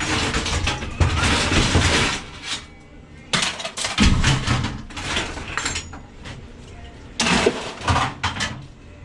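Scrap metal being handled and thrown onto piles, clattering and crashing in several separate bursts, the first about a second in and another near the end.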